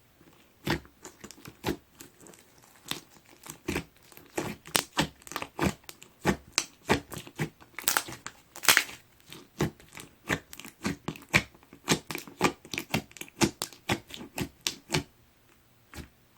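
Hands squishing and poking mint-chocolate slime, making a quick run of sticky clicks and pops, about three or four a second.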